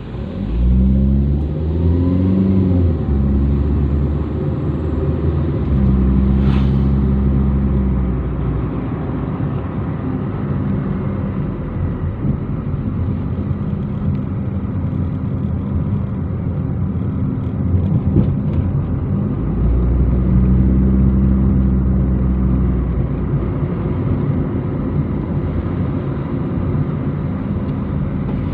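Car engine and tyre noise heard from inside the cabin while driving. The engine pitch climbs in the first few seconds as the car picks up speed, then holds as a steady drone, swelling louder twice.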